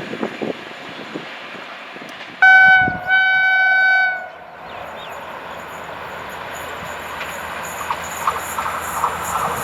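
WAP5 electric locomotive horn sounding two blasts, a short one and then a longer one, about two and a half seconds in. Afterwards the noise of an approaching train slowly grows louder, with a steady whine and rhythmic clicking from the wheels coming in near the end.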